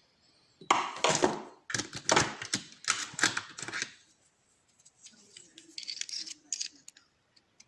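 Small metal lock parts rattling and clicking in the hands as a pin-tumbler challenge lock is taken apart. A loud rattle lasting about three seconds, then quieter scattered clicks.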